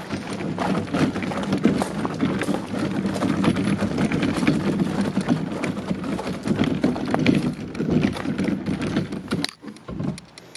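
Gravel crunching and crackling under the plastic wheels of a Camco Rhino portable waste tote tank as it is pulled along, mixed with footsteps on the gravel. The sound stops about nine and a half seconds in.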